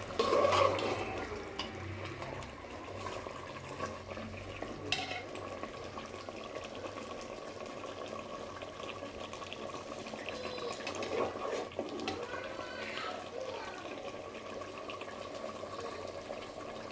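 Steady sound of water in a kitchen, with a few light clinks of utensils.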